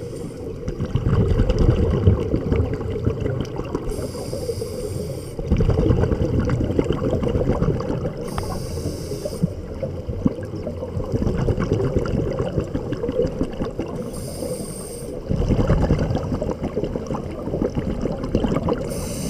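Scuba diver breathing underwater through a regulator: a short hissing inhale about every four to five seconds, each followed by a long low burble of exhaled bubbles.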